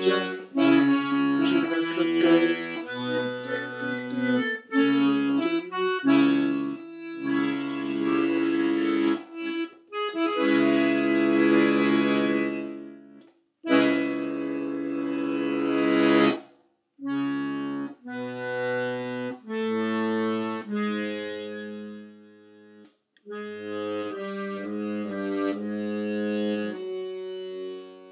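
Piano accordion played solo, a melody on the treble keys over bass notes and chords, in phrases with a few short pauses between them.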